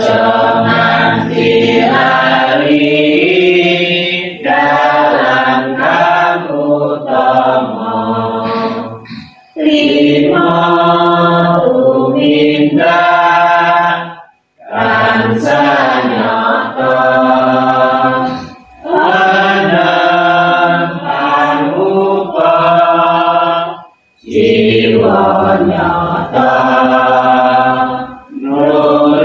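A congregation of men and women singing a Buddhist devotional song together in unison, in sung phrases with a few short breaks for breath between them.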